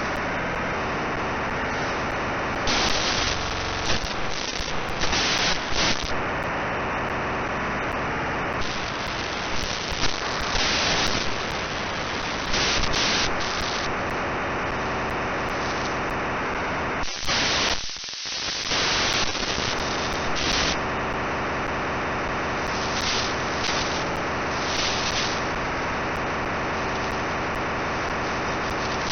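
Radio static from a receiver tuned to an odd signal: a dense, rough hiss that swells in brief brighter bursts every few seconds, with a short dip a little past halfway.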